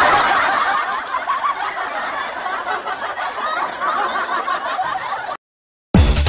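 Laughter from many voices at once, a dense overlapping chuckling, which cuts off abruptly about five seconds in. After a brief silence, electronic dance music with a steady beat starts just before the end.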